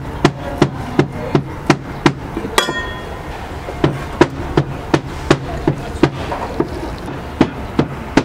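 Steady, sharp knocks, about three a second, like chopping or hammering on a block. They pause briefly after a single ringing metallic clink about two and a half seconds in.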